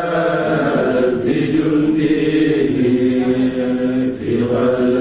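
A group of men chanting a religious text together in unison, with long drawn-out notes that rise and fall in pitch and a brief pause for breath about four seconds in.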